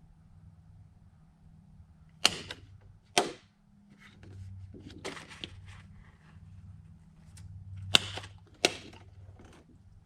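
Handheld paper punch snapping through a thin sheet of clear Lexan polycarbonate: two sharp snaps about a second apart, then two more about six seconds later, with quieter handling of the plastic between them.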